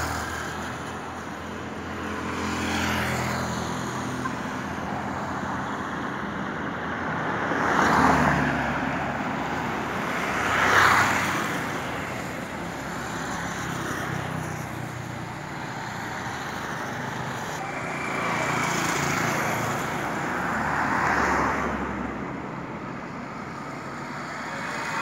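Road traffic: a low, steady engine hum with about five vehicles swelling past and fading, the loudest about 8 and 11 seconds in.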